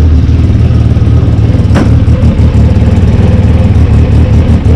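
Arctic Cat Wildcat XX side-by-side's engine running at a steady idle close by, just after starting, with one sharp click about two seconds in.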